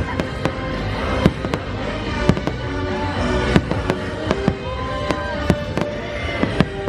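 Fireworks bursting in a rapid, irregular series of sharp bangs, about two a second, over the fireworks show's music.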